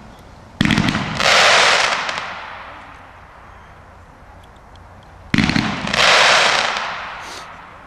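Two aerial firework shells bursting about five seconds apart, each a sudden bang followed by a loud hissing crackle that fades over a second or two.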